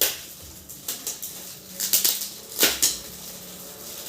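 Gift packaging rustling and crinkling in a few short, sharp bursts as it is handled and unwrapped.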